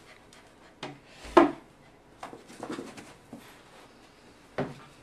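A few short knocks and thumps, the loudest about a second and a half in, with softer rubbing and handling noise between them.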